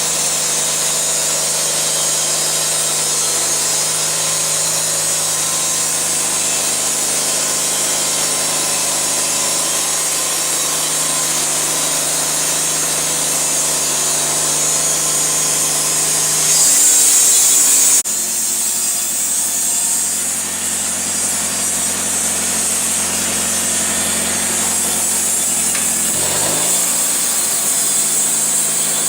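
Homemade bandsaw mill cutting through a white ash log, its 15 HP engine running steadily under the hiss of the blade in the wood. The engine note changes abruptly about 17 seconds in and shifts again near 26 seconds.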